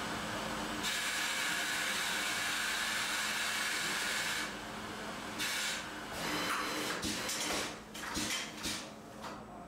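Automated laser welding cell for stainless steel tubes: a steady hiss for about four seconds, then shorter stop-start hisses with a few sharp clicks and knocks as the machine's pneumatics work.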